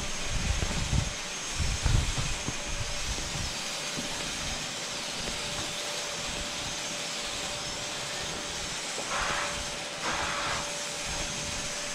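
Vacuum cleaner running steadily: an even hiss with a faint whine, with two brief louder surges near the end. Low rumbling bumps come in the first couple of seconds.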